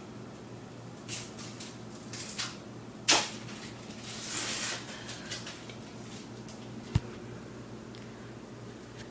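A wooden door being opened, a loud sharp latch-and-creak sound about three seconds in, among the scattered knocks and rustles of a camera being carried by hand, with a single sharp knock near the end, over a steady low hum.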